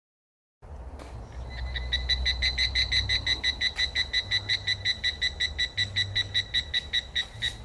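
A frog calling in a fast, even series of short croaks, about five a second, over a low rumble; it starts about half a second in, after silence, and slows near the end.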